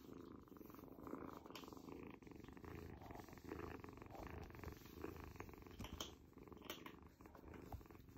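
Small kitten purring steadily while being stroked, the purr swelling softly about once a second. A few faint clicks near the end.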